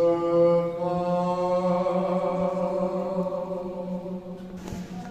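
Voices chanting: a low drone held steadily underneath a second voice holding one long note, which fades away about four and a half seconds in.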